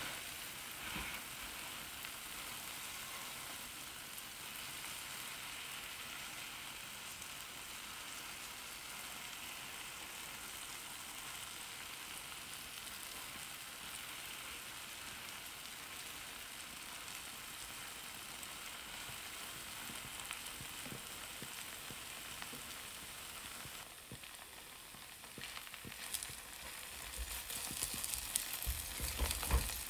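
Beaten egg and shredded cheddar sizzling steadily in a ceramic frying pan as slices of bread are pressed into it. Near the end a spatula scrapes and knocks against the pan as it moves the bread.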